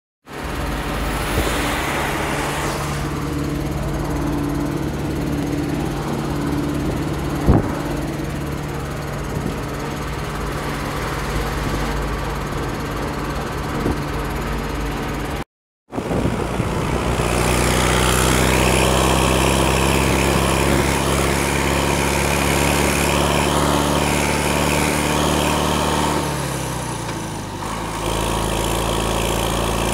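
MB Trac 900 Turbo's six-cylinder turbo diesel engine running under way, first heard from inside the cab with a single knock about a quarter of the way in. After a brief break it is heard close to the exhaust stack, louder and brighter, and near the end the engine note drops and then picks up again.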